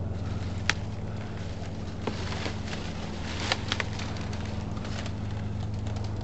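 Dry grass and dead palm fronds crackling as they are trodden on and handled, with a sharp snap about a second in and a quick cluster of snaps past the halfway mark, over a steady low hum.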